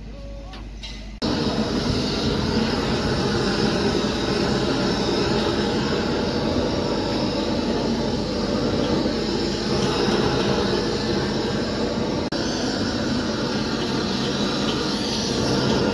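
Gas torch burner running with a steady, loud hiss as it heats torch-on bitumen waterproofing membrane on a concrete wall; the sound starts abruptly about a second in.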